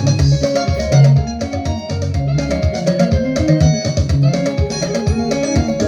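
Instrumental praise music with plucked guitar lines over bass and drums at a steady beat.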